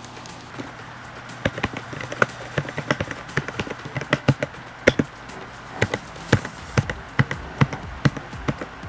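Typing on a Rakk Pirah mechanical keyboard: irregular key clacks, a few per second, starting about a second and a half in.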